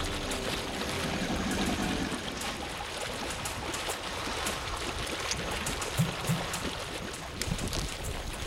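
Water splashing and churning as Nile crocodiles thrash and fight in shallow river water: a steady rush of water with many short splashes and slaps.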